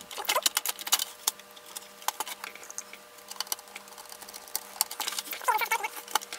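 Screwdriver driving screws into the case of a digital TV set-top box: a run of small irregular clicks and scrapes, thickest in the first couple of seconds.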